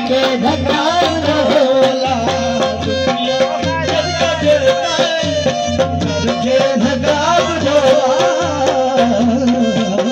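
Live folk music played on harmonium and tabla, with a man singing. A steady held harmonium note sits under the bending vocal line, and the tabla strikes keep a regular beat.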